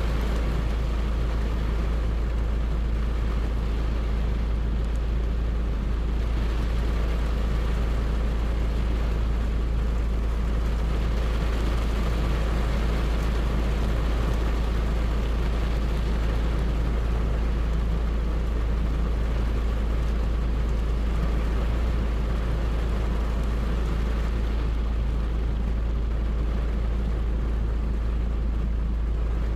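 Steady rain falling: an even, unbroken hiss with a strong low rumble underneath.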